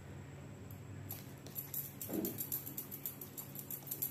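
Bangles clinking faintly in quick little clicks as a hand stirs a wet clay paste in a plastic bowl, over a low steady hum, with a brief muffled sound about two seconds in.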